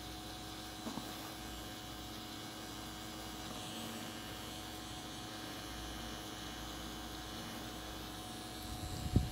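Cartridge-style tattoo machine running with a steady hum while shading skin. A short knock sounds near the end.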